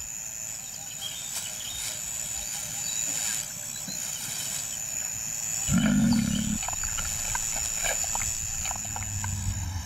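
A lion gives one short, low growl lasting about a second, a little past halfway through.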